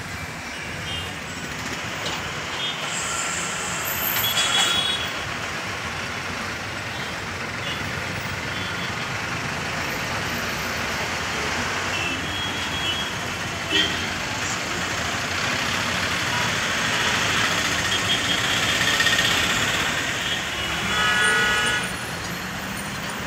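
Busy road traffic: buses, cars and motorbikes running and passing in a steady wash of engine and tyre noise, with short horn toots a few times.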